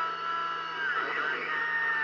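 CB radio receiver audio on the 27 MHz band during a sporadic-E skip opening: a steady bed of hiss and static with several gliding, warbling tones, the garbled sound of distant stations coming through the noise.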